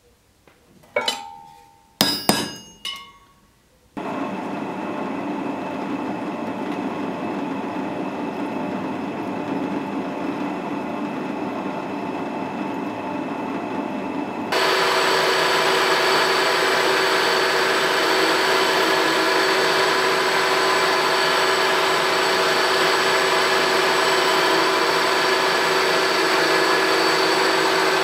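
A few sharp, ringing hammer taps on a punch held against a steel part on an anvil. Then a drill press runs steadily, drilling the steel part. About halfway through, a louder milling machine with a small end mill takes over, running steadily with a high whine as it cuts.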